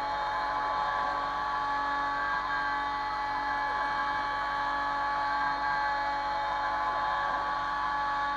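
Kress FME 800 spindle on a Stepcraft 2/420 CNC router, running at about 11,000 rpm while milling aluminium: a steady whine with several held tones. A lower hum underneath comes and goes every couple of seconds.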